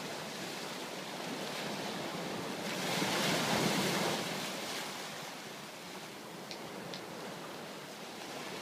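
Small waves breaking and washing up a sandy beach. One wave surges louder about three seconds in, then the wash fades back.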